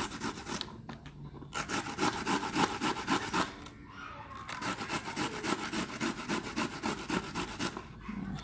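Starfruit being grated by hand on a grater: quick, rhythmic rasping strokes, several a second, with a few short pauses as the fruit is repositioned.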